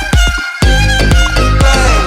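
Background music: an instrumental stretch of a song, with a steady beat under a sustained melody. The beat drops out for a moment about half a second in, then comes back.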